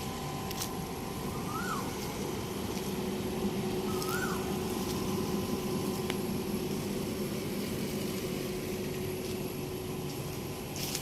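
Air conditioner outdoor units running: a steady hum from the compressor and fan. A short rising-then-falling chirp sounds twice, about two and a half seconds apart.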